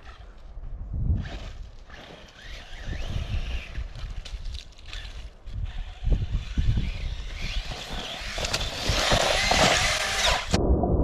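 Brushless RC truck's electric motor whining, rising and falling in pitch as the truck is driven hard over loose volcanic gravel, with low thumps from the rough ground. It gets louder and closer about eight seconds in, then cuts off suddenly near the end.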